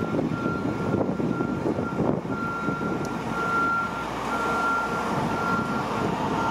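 Lorry's reversing alarm beeping at one steady pitch, about one half-second beep a second, over the lorry's diesel engine running and passing traffic.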